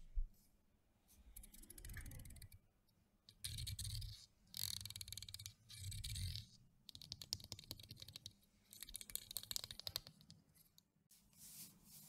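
Teeth of a wooden comb clicking in quick runs as a fingertip is drawn across them, about six strokes, each a rapid patter of small clicks with soft handling thumps underneath.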